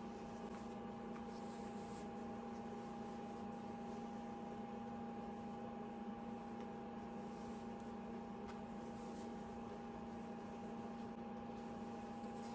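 Steady low hum with a fainter, higher steady tone over soft room noise, typical of a running household appliance.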